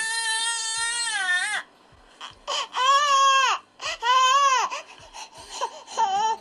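Infant crying: a long cry that breaks off about a second and a half in, then after a short pause two loud cries that rise and fall in pitch, followed by several short, broken sobs near the end.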